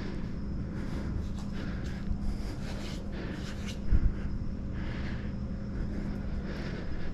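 A steady low hum and rumble, with irregular knocks and rustles from the moving body-worn camera and a louder bump about four seconds in.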